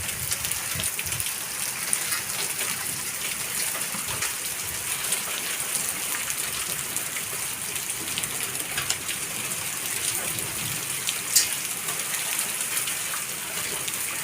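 Hailstorm: heavy rain hissing steadily, with many sharp ticks of hailstones striking surfaces and one louder hit about eleven seconds in.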